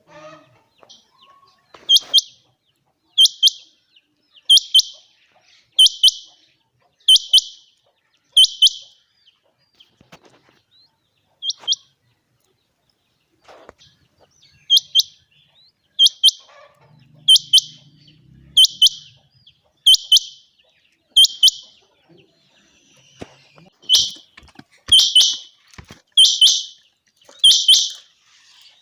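A quail (chinga batair) calling: short, sharp, high-pitched double notes repeated about once every 1.3 seconds. There are three runs of calls: six, then a lone call and a pause, then six more, then four louder ones near the end.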